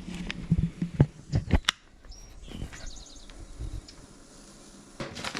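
A quick series of sharp knocks and clicks in the first two seconds, then a few faint bird chirps.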